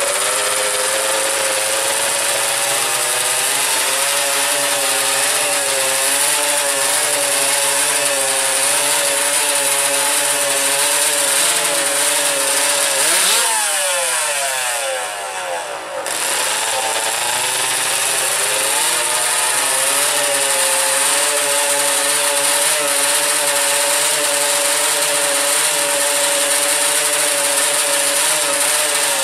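Engines of two 125cc two-stroke drag motorcycles held at high revs on the start line, a steady, slightly wavering buzz. About halfway the revs fall away, then climb back and hold steady again.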